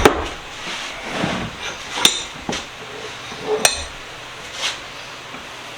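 Sharp metal-on-metal clinks and knocks from bench vise parts and tools being handled during reassembly. The loudest come at the start, about two seconds in and about three and a half seconds in, each with a brief metallic ring.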